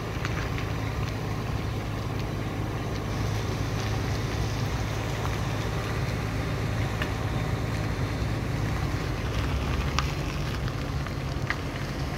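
Steady rumble of a vehicle driving along a road, heard from on board, with wind rushing over the microphone.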